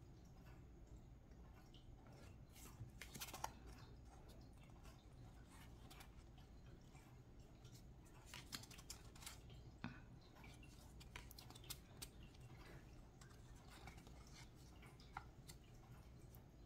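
Faint handling of tarot cards: soft scattered clicks and brief rustles as the stiff cards are slid off the deck and passed from hand to hand, with near silence between them.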